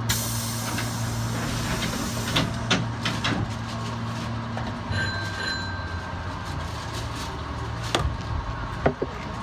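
Sliding doors of a stationary electric commuter train closing: a hiss of air for about two seconds, then a few knocks as the doors shut. A short electronic beep comes about five seconds in, over the steady hum of the train's equipment, with a couple of clicks near the end.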